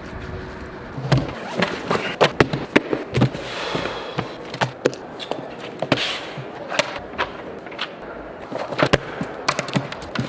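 Objects being set down and handled on a wooden tabletop: an irregular run of knocks and clicks as a notebook, books and a phone are put down and moved, with a couple of brief rustles.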